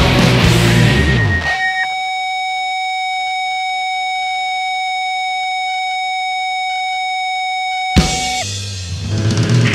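Distorted rock music with drums and guitars that drops out about a second and a half in, leaving a single steady high electronic tone held for about six seconds. A sharp hit follows, and the full band comes back in near the end.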